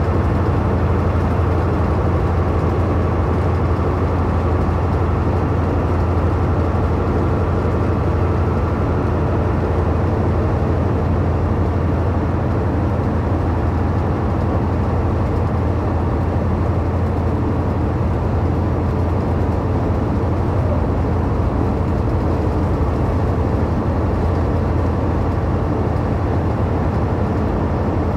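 Steady low drone of a truck's engine with tyre and road noise, heard from inside the cab while cruising at highway speed.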